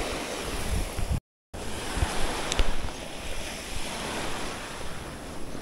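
Small waves breaking on a sandy beach, with wind on the microphone. The sound cuts out completely for a moment just after a second in, then the surf and wind carry on.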